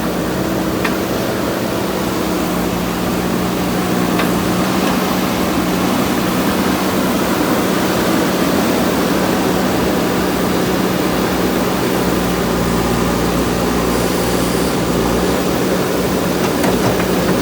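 JCB backhoe loader's diesel engine running steadily under work, a constant hum with a few faint clicks.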